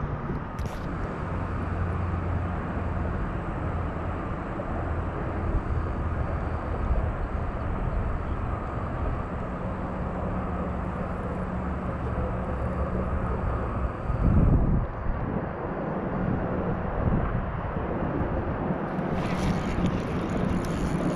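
Steady low drone of distant engines, with a brief louder low bump about two-thirds of the way through.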